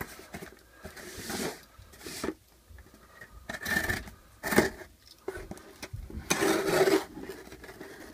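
Knife blade slitting the packing tape on a corrugated cardboard shipping box, with the box being handled and turned over: a series of short, irregular scraping and rustling bursts of tape and cardboard.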